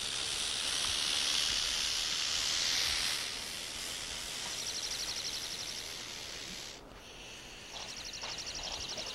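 Bull snake hissing defensively: one long loud hiss for about three seconds, then two shorter rapid, rattle-like buzzes. It is the snake's act of mimicking a rattlesnake.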